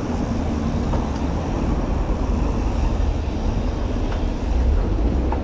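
Steady low rumble from riding a mountain bike along a city street: wind buffeting the microphone and tyre noise, with car traffic around.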